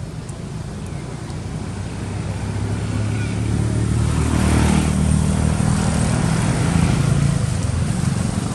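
A road vehicle's engine passing, a low steady hum that grows louder over the first few seconds and eases off near the end.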